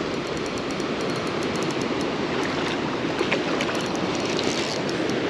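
Steady rushing of creek water flowing.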